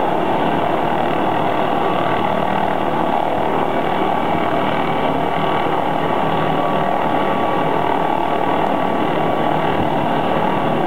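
MD 520N NOTAR helicopter running steadily on the ground, main rotor turning, with a steady turbine whine over the rotor noise.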